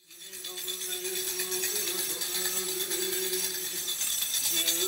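Metal rings of a Buddhist monk's hand-held ritual staff jingling continuously as he shakes it, over a steady low held tone.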